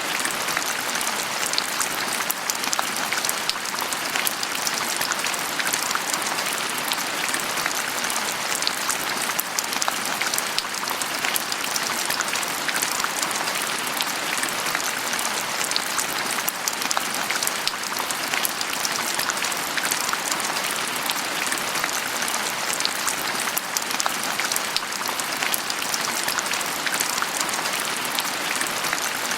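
Steady rain falling on a surface, a dense even patter of many small drops without letting up.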